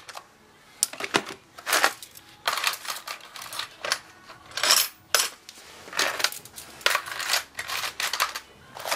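Small hand tools and metal odds and ends clattering and clicking against each other and the plastic as they are handled and packed into a plastic toolbox, in irregular bursts of rattling.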